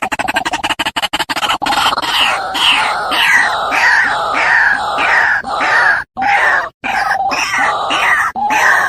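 White-breasted waterhen (ruak-ruak) calling: a fast, even chatter of pulses that turns about a second and a half in into a repeated loud call note, roughly two a second, with a few brief breaks.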